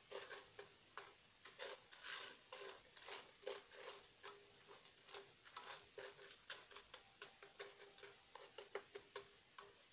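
Faint clicking and rattling of oil-coated raw popcorn kernels being stirred with a spoon in a metal pot, a few irregular clicks each second.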